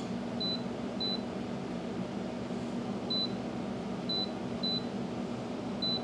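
Short high beeps from the Haier wine fridge's control panel, six in all at uneven spacing, each a button press as the set temperature is raised. The fridge's Peltier cooling fans run with a steady hum underneath.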